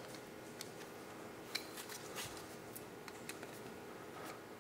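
6-32 screws being tightened by hand with a hex driver: faint, scattered small clicks and ticks of the driver and metal parts.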